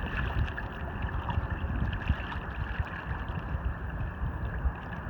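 Wind buffeting the microphone in gusts over a steady wash of moving, gurgling water.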